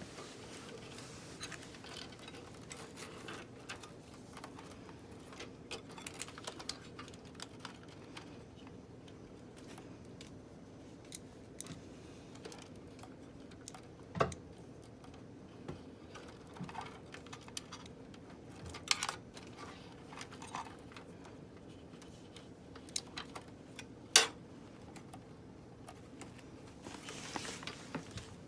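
Computer parts being handled by hand: scattered light clicks and taps, with two sharper clicks about 14 and 24 seconds in.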